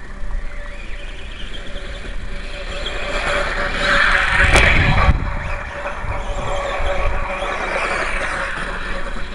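Atomik MM450 RC motorcycle running over loose dirt and gravel, swelling louder as it passes close by about four to five seconds in, with a sharp click near its loudest point.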